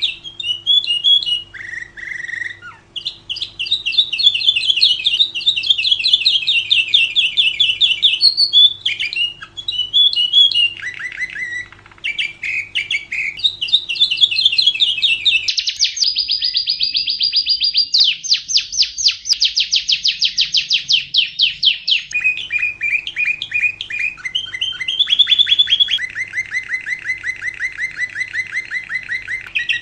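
Lovebird singing in long, rapid chattering trills, almost without pause, with a higher, more even buzzing stretch in the middle. It is a master song played to train young lovebirds.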